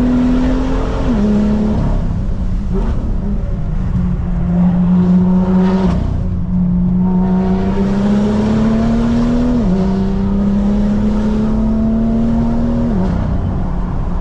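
Tuned BMW M2's turbocharged straight-six pulling under load at speed, its pitch climbing slowly and dropping sharply at each gear change, several times in a row, over steady tyre and road noise.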